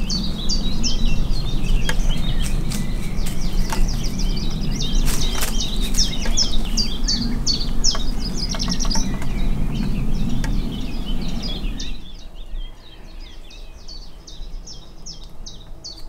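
Songbirds chirping and singing in a dense, rapid chorus over a low background rumble. About twelve seconds in the rumble stops and the birdsong carries on more faintly.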